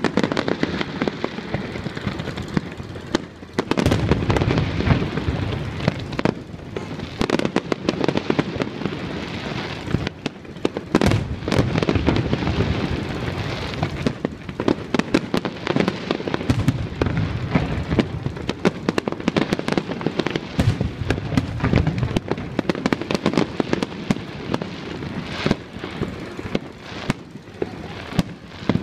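Aerial fireworks display: shells bursting one after another, with many sharp bangs and crackles throughout. Louder, denser volleys start about four, eleven and twenty seconds in.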